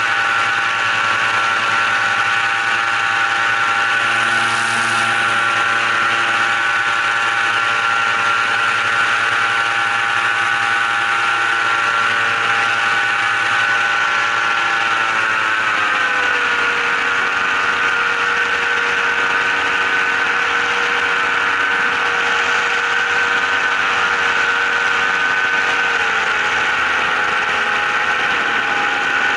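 An engine running steadily, its pitch stepping down a little about halfway through and again near the end.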